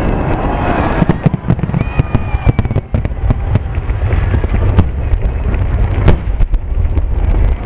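Aerial fireworks shells bursting in quick succession, a rapid run of bangs and crackles over a continuous low rumble. A short whistle comes about two seconds in, and a sharp, loud bang about six seconds in.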